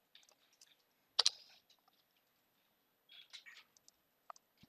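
Faint clicks of a computer mouse and keyboard, with one sharper click about a second in and a few soft short clicks and rustles later on.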